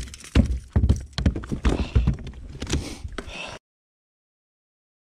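A small bass flopping and slapping on the plastic deck of a Bonafide RVR 119 kayak, a quick uneven run of knocks and thumps that cuts off suddenly to dead silence about three and a half seconds in.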